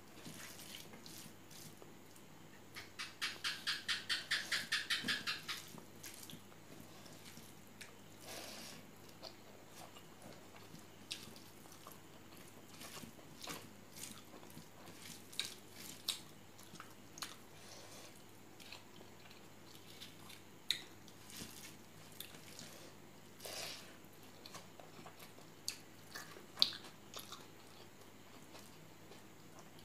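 Hand-eating sounds: fingers mashing and mixing rice with pork curry on a steel plate, with a quick rhythmic run of wet squishes a few seconds in, then scattered clicks of fingers on the plate, chewing and lip smacks.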